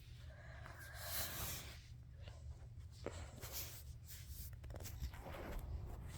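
Soft scratchy rubbing and rustling, with a louder swell about a second in and a small click about three seconds in, over a low steady hum.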